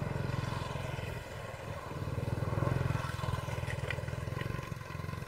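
A steady low rumble, swelling a little about halfway through, with a few faint high ticks near the end.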